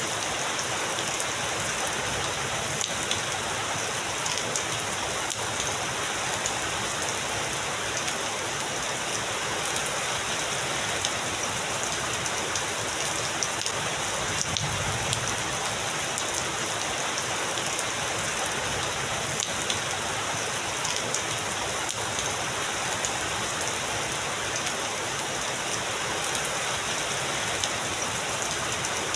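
Heavy rain falling steadily, an even hiss with scattered individual drops ticking through it.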